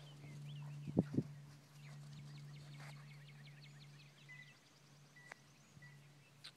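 Small birds chirping in quick runs of short, high, falling notes over a faint low steady hum, with two dull thumps in quick succession about a second in.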